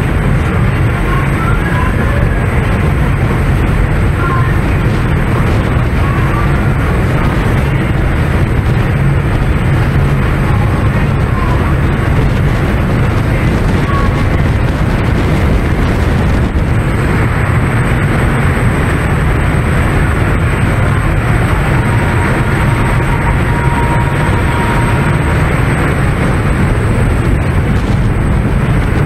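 Steady, loud wind buffeting the microphone on the open deck of a fast-moving tour speedboat, over the low rumble of the boat running at speed through the water.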